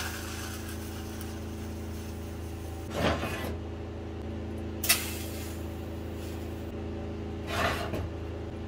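Steady electrical hum of a TIG welding machine, broken about three seconds in and again near the end by short noisy bursts, with a single sharp click in between, as a steel drum on a steel bench is tack-welded and turned by hand.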